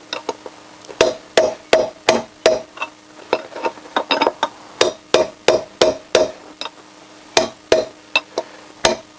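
Hammer blows on a steel drift driving a worn-out bearing out of a Honda CBR1000F's alloy rear wheel hub. The blows come in runs of about three a second, each with a short metallic ring, with brief pauses about three and seven seconds in.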